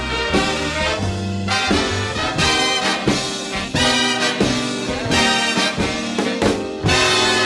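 Instrumental swing-band music: a brass section plays held, stepping chords over a steady beat, with no singing.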